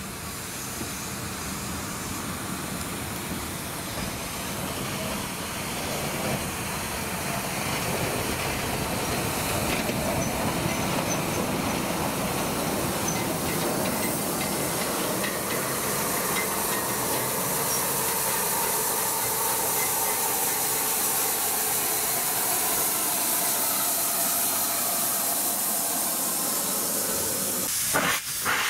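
Rebuilt Bulleid Merchant Navy class steam locomotive running slowly past close by with a steady hiss of steam, growing louder as it approaches. Near the end the sound breaks off briefly and a louder rush of steam starts.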